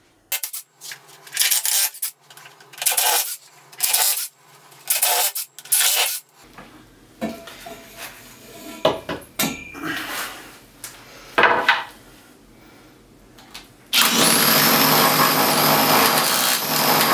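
Cordless drill starting about 14 seconds in and running steadily with a high whine as its bit bores into a freshly cast concrete base, which is not yet fully cured. Before it, a run of short noisy sounds about a second apart, then scattered clicks and rubbing.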